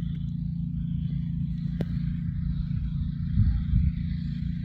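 Steady low rumble of motor vehicles driving, swelling louder for a moment about three and a half seconds in.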